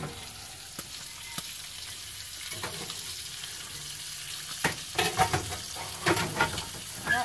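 Bacon sizzling steadily in a frying pan on a gas stove. In the second half come several sharp metal clanks and knocks.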